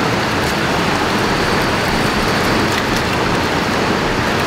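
Rocky river rushing steadily over stones, with a few faint crackles from a small wood fire.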